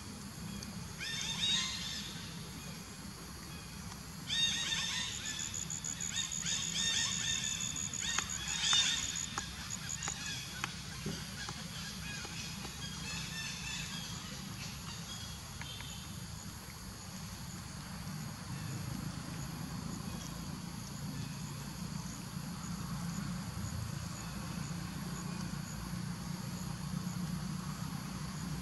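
A run of high-pitched animal calls, a short one about a second in and a busier stretch from about four to ten seconds, over a steady low hum.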